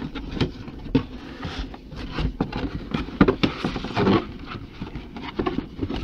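Cardboard doll box being handled and turned on a tabletop: a run of irregular scrapes, taps and knocks, the loudest about three to four seconds in.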